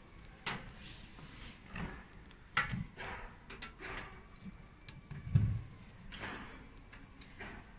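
Irregular knocks, clunks and short scrapes of machine parts being handled during the disassembly of a CO2 laser cutting machine, with a heavy thud about five and a half seconds in.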